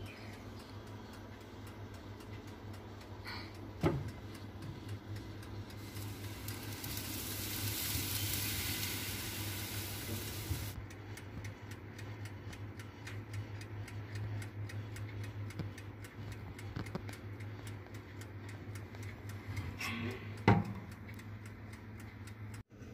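Kitchen cooking sounds: a steady low hum, with a hiss lasting about five seconds in the middle and two sharp knocks, one about four seconds in and one near the end.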